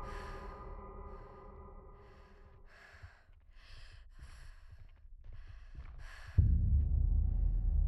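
A held musical chord dies away, then a woman breathes hard in short, quick breaths, about two a second. Near the end a loud, low throbbing drone cuts in suddenly.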